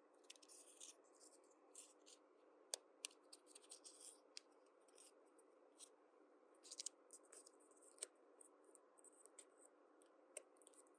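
Faint, irregular crinkling, scraping and rustling of plastic packaging and small toy pieces being handled during unboxing, with a few sharp clicks.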